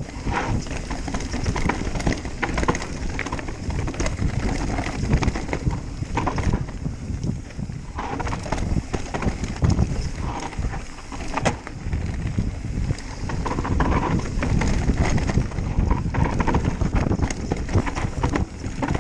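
Mountain bike riding fast down a dry dirt trail: a steady low rumble of wind on the microphone and tyres on dirt and leaves, with frequent sharp clicks and rattles as the bike hits bumps.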